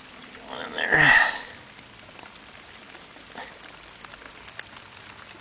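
Light rain falling steadily, an even hiss, with one brief loud burst of noise about a second in.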